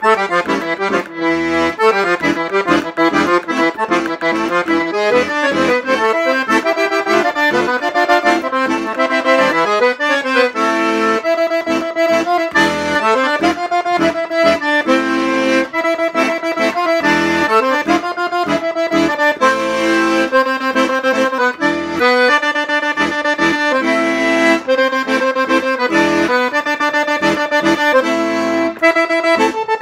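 Italian Philharmonic piano accordion with four-voice treble, double tone chamber (cassotto) and 120-bass five-voice bass side, played continuously: a right-hand melody on the keyboard over a steady rhythmic left-hand bass-and-chord accompaniment.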